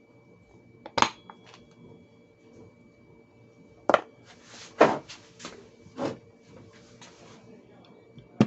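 Hard clicks and knocks from a watch case opener tool being handled and set down: a loud one about a second in, then a cluster of knocks between about four and six seconds.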